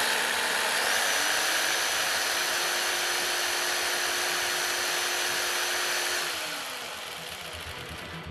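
Jigsaw running free without cutting, its blade stroking up and down: a steady, loud motor whine that climbs slightly in pitch about a second in and winds down about six seconds in.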